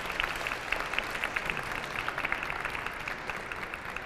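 Audience applauding at the end of a song, with dense clapping that slowly dies down near the end.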